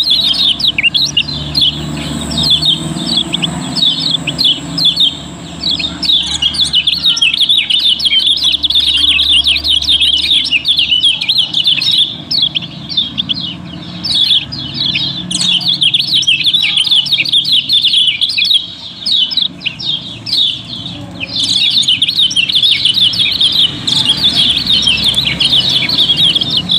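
Several kecial kuning (yellow white-eyes) chirping rapidly and without pause in a dense, overlapping chorus of high, short calls, with a few brief lulls.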